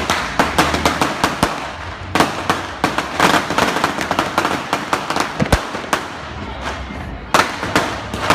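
Strings of firecrackers going off in rapid crackling bangs, many a second, thinning out about six seconds in and then picking up again near the end.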